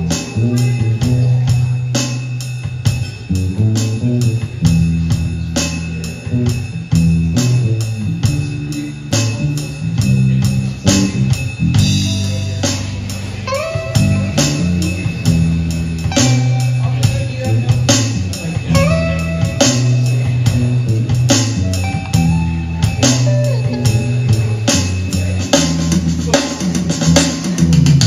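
Live instrumental rock-blues jam by a trio: electric guitar, electric bass and drum kit. A prominent bass line moves under a steady drum beat while the guitar plays lead lines.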